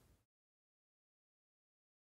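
Near silence: faint room tone that cuts out a quarter of a second in, leaving complete digital silence.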